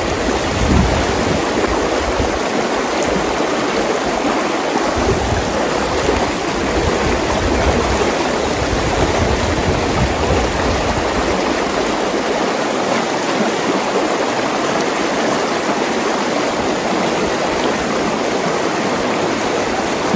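Shallow, fast stream rushing over rocks close by, a steady water noise, with some irregular low rumble in the first half.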